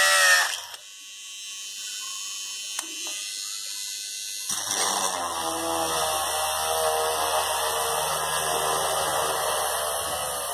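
Homemade 12-volt hand drill built from an RS-555 DC motor. A high motor whine falls away in the first second, then after a lull the motor starts again about four and a half seconds in and runs steadily while the bit bores into a wooden strip, its pitch wavering a little under load. It stops suddenly at the end.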